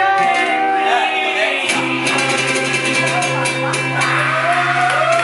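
Live blues band playing the song's final bars, guitar ringing out on a long held chord over repeated cymbal hits.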